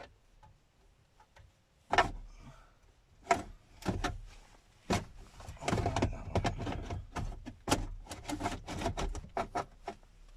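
Hard knocks, clicks and scraping as a car stereo unit is pushed and worked into its dash mounting cage, which is resisting. A few separate sharp knocks come first, then a busy run of clatter in the second half.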